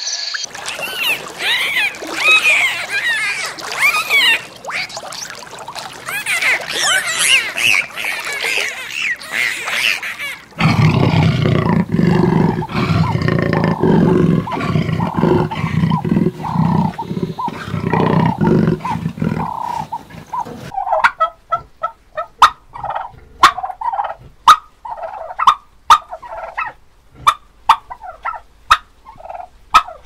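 Three animal sounds in turn: first about ten seconds of many high, quickly gliding calls; then about ten seconds of a low, pulsing growl from a big cat such as a cheetah; then turkeys gobbling in short rattling bursts among sharp clicks.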